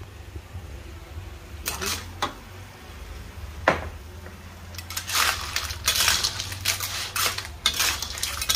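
Metal spatula clanking and scraping in a metal wok full of clams in their shells as they are stir-fried. A few separate clanks come first; from about halfway through, continuous stirring with rapid scraping and shell clatter.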